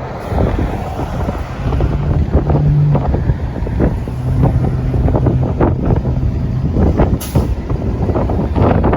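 A city bus engine running, with strong wind buffeting the microphone. There is a brief sharp hiss about seven seconds in.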